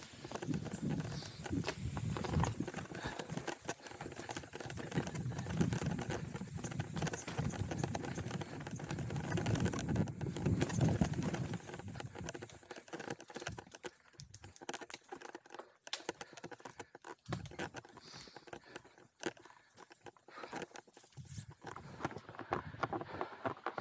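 Hardtail mountain bike descending a rough, rooty trail: its tyres and frame clatter over roots and rocks in a steady run of knocks. The clatter is dense for about the first half, then thins to sparser, quieter knocks before picking up again near the end.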